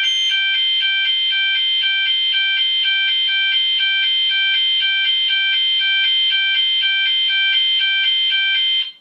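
Gent S3 Mk2 voice sounder beacon sounding its alternating fire-alarm tone: a loud two-tone warble switching between a higher and a lower pitch about four times a second. It cuts off just before the end.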